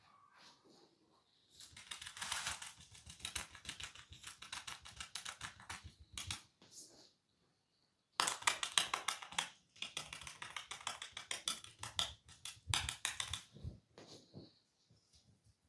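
Rapid, crackly scratching on the head during a barber's massage: fast strokes in two long runs, the second starting after a short pause.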